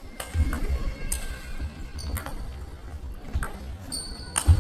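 Table tennis ball being struck during play: a series of sharp, irregular clicks of the ball on bats and table, with a brief high squeak about four seconds in.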